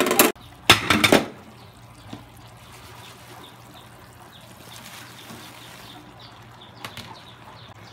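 Sliced bologna and cauliflower sizzling in a wok, with two loud scrapes of a spatula against the pan in the first second. Then a steady sizzle with light crackles as Chinese cabbage is tipped into the hot pan.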